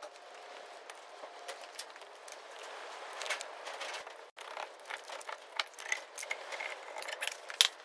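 Irregular light metallic clicks and clinks of a hand tool at work on the Allen bolts of a Ford TW25 tractor's front hub cover, getting busier in the second half.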